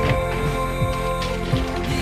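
Background music: a song with sustained instrumental notes and light percussion.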